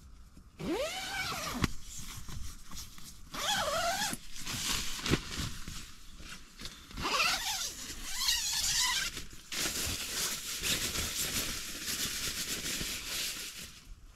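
A tent door zip being pulled open in about four strokes with short pauses between them, the last and longest running for about four seconds. The earlier strokes carry a whine that slides up and down in pitch.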